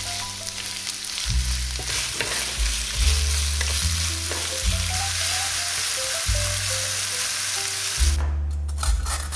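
Sliced onions sizzling as they fry in hot vegetable oil in a pan, with a wooden spatula stirring them. The sizzle cuts off abruptly about eight seconds in.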